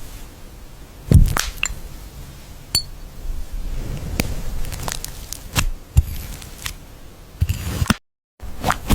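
Irregular close-miked taps and clicks, about seven in all, several with a soft thump and one with a short ringing ping, over faint background hiss. The sound cuts out completely for a moment about eight seconds in.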